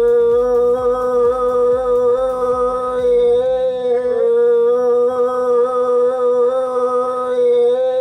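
Melo melo (baler snail) shell blown as a horn: one long held note with a slight waver in pitch.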